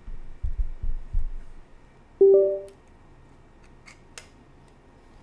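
Windows device-connect chime as the iPod Classic is plugged in by USB: a short rising two-note tone about two seconds in. It follows a few dull thumps of handling and is followed by a couple of faint clicks.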